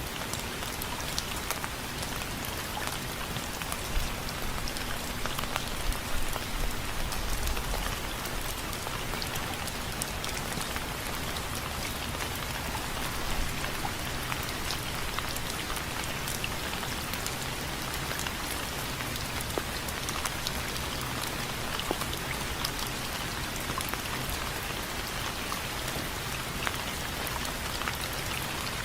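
Steady rain with individual drops hitting a window frame, a few louder drops standing out about four to seven seconds in. A faint low hum runs under it.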